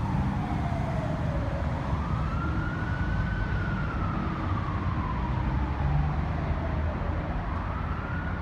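Fire truck siren on a slow wail, rising and falling with a full sweep about every five seconds, over a steady low rumble of engines and traffic.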